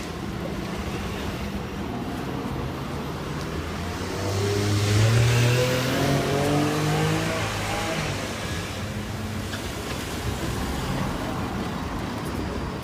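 A motor vehicle passes by over steady street noise. It grows loudest about five seconds in, and its engine note falls in pitch as it goes past, then fades.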